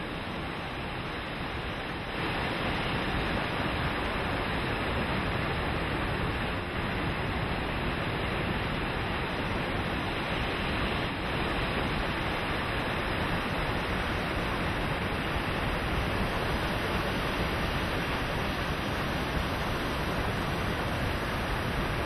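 Steady rushing noise of wind and choppy sea with no distinct events, a little louder from about two seconds in.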